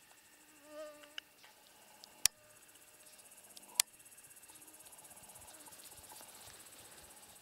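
Insects chirring steadily in a field at dusk, growing stronger after about two seconds. About a second in there is a short pitched call, and sharp clicks come a little after one, two and four seconds in; the clicks are the loudest sounds.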